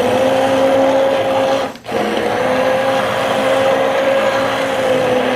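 Handheld immersion blender running on its low setting in a pot of soup, a steady motor hum with the blades churning the liquid. It cuts out briefly about two seconds in and then starts again.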